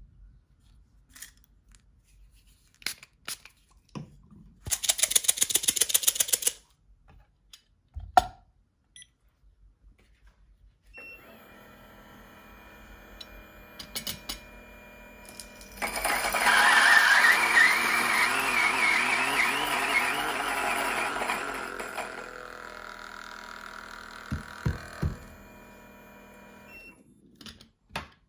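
Coffee beans rattling as they are poured into a G-64 single-dose grinder with 64 mm titanium burrs, then a click. The grinder's motor starts with a steady whine, grinds the beans loudly for about six seconds, then runs on more quietly once the beans are through and stops near the end.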